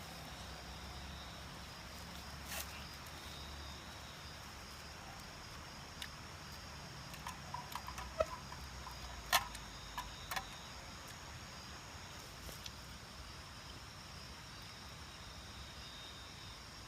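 A steady chorus of crickets and other insects chirping in high, even bands. A few short, light clicks and knocks come in a cluster around the middle.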